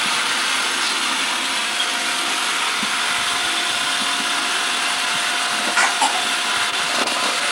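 Electric hand mixer running steadily, whipping cream, with a faint constant motor whine.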